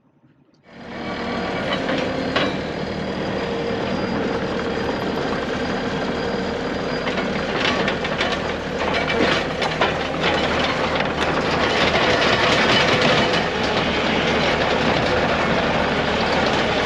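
A heavy vehicle's engine running, with a steady metallic rattling and clanking throughout that starts abruptly about a second in.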